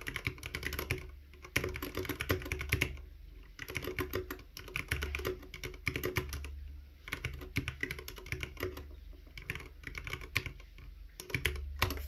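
Typing on an iKBC Poker 2 60% mechanical keyboard with Cherry MX Red switches and PBT keycaps: rapid key clacks in runs, broken by short pauses every second or two.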